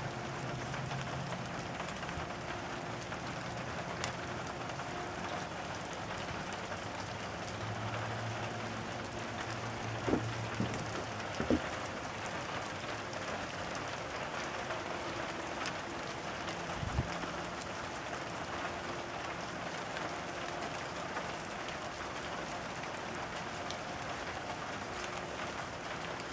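A shower of soft hail falling steadily on the yard, an even hissing patter, with a few sharper knocks near the middle.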